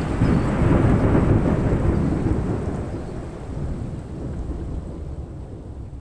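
Rolling thunder: a deep rumble swells during the first second, then slowly dies away over the next few seconds.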